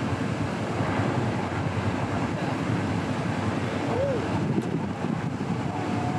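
Steady outdoor noise of wind on the microphone with the chatter of a crowd, and a short rising-and-falling whistle-like tone about four seconds in.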